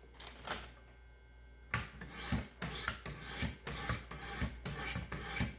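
Knife edge being stroked on the 200-grit sharpening stones of a Wicked Edge Gen 4 Pro guided sharpener, starting about a second and a half in and repeating at roughly two strokes a second.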